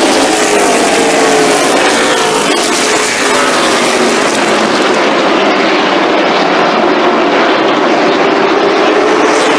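Late model stock cars circling a short oval, their engines a steady drone that sinks in pitch over the first few seconds and climbs again near the end as the cars come around.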